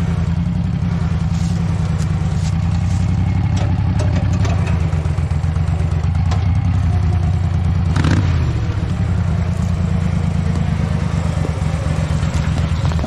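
Garden tractor engine running steadily, with scattered light clatter and a single sharp clank about eight seconds in.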